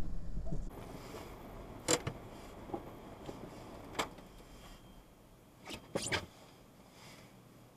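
Inside a car in an automatic car wash: a low rumble drops away under a second in, leaving a faint hum broken by a handful of separate sharp taps and knocks, two of them close together near the end.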